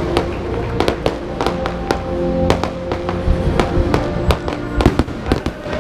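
An aerial fireworks display: many sharp bangs and crackles at irregular intervals, several a second, over music with long sustained melody notes.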